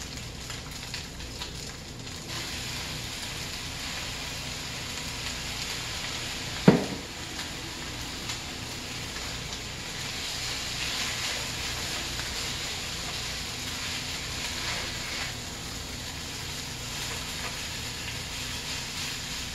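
Rice and soy sauce frying in a deep pan, a steady sizzle as it is stirred and turned with a spatula and tongs. One sharp knock about seven seconds in.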